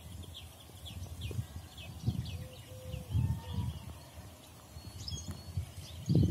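Wind buffeting the microphone in irregular low gusts, the strongest about three seconds in and near the end. Over it, a small bird calls in a rapid run of short high chirps, thinning out after the first couple of seconds.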